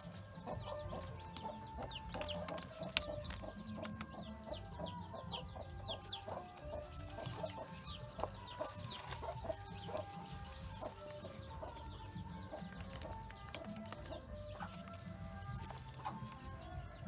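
Chickens clucking, many short calls overlapping, with high chirps falling in pitch mixed in. A single sharp click comes about three seconds in.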